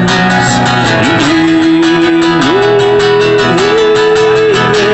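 Guitar strummed in a steady rhythm under a held melody line that slides up between three long notes: an instrumental break between sung lines.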